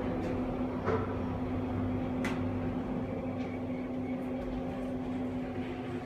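Steady hum inside a KONE EcoDisc elevator car during its ride, with a steady low tone and a few faint clicks.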